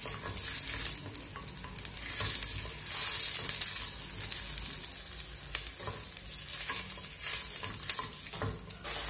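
Diced onion sizzling as it fries in oil in a stainless steel pot, with a wooden spatula stirring and scraping against the pot. The sizzle swells loudest about three seconds in.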